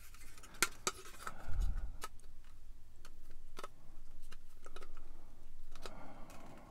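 Hobby side cutters nipping pieces off the plastic hull of a scale model kit: several separate sharp clicks, with a low thump about a second and a half in.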